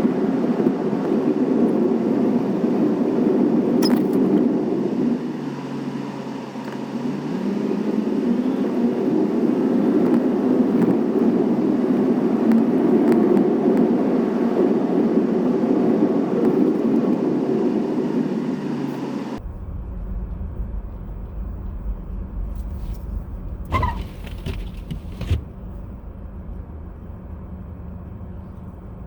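Steady road and engine noise inside a moving car. About two-thirds of the way through it changes abruptly to a quieter, deeper rumble with a few sharp clicks.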